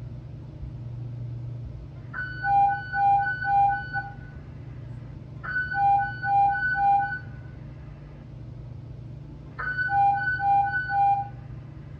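Fire radio alert tones played back from a recorded dispatch: three bursts of rapid beeps alternating between a high and a lower pitch, each burst about two seconds long, over a steady low hum. They are the alert that precedes a dispatcher's Mayday broadcast to all units.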